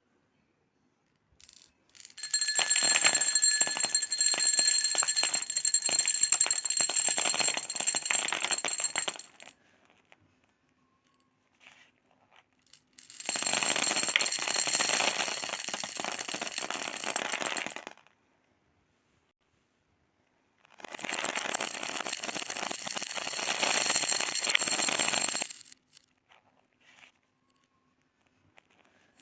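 Many small beads clattering against each other and their container in three spells of several seconds each, a dense run of tiny clicks with a steady high ringing over it.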